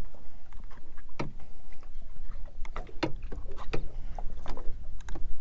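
Water slapping against the hull of a small fishing boat at sea, with a steady low rumble and a few sharp knocks scattered through it.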